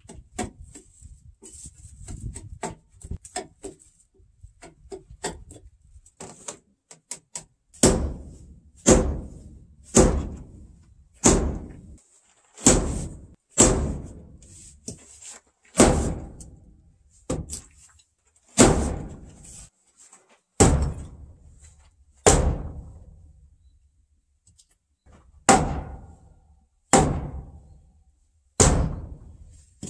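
Light tapping and scraping of a chisel on timber, then heavy blows of a large wooden mallet on a timber frame about every second or two, each landing with a hollow knock that rings briefly, as a beam is driven into its joint in a post.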